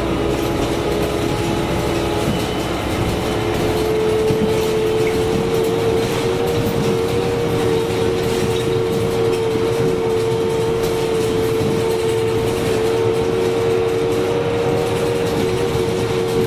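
Karosa B951E city bus under way, heard from inside the cabin: steady drivetrain rumble with a strong whine that rises slightly in pitch a few seconds in and then holds steady.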